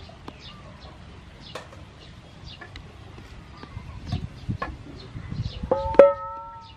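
Low thuds as the nonstick frying pan is shifted on the stove, then near the end a sharp metallic clink that rings on with a clear steady tone for about a second, as the pan is knocked. Faint birdsong chirps in the background.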